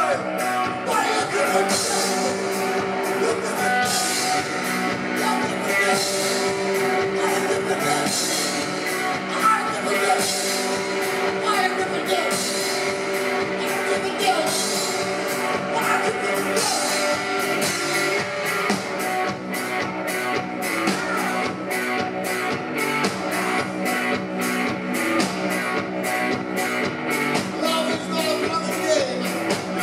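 Live rock and roll played by a duo: hollow-body electric guitar and a small stand-up drum kit with cymbal, with a man singing.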